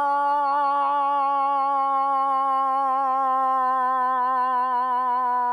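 A hunter's moose call, one long wavering wail that sags slowly in pitch, made to draw a bull moose within hearing.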